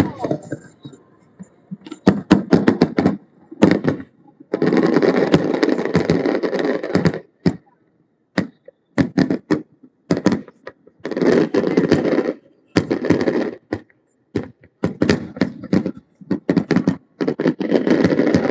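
Fireworks going off: a run of sharp bangs and pops, with several stretches of dense crackling lasting two to three seconds each.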